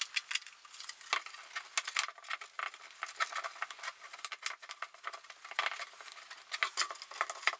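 Gloved hands fitting a plastic double-DIN dash frame onto a car stereo head unit: irregular plastic clicks, knocks and scraping, with some rustling.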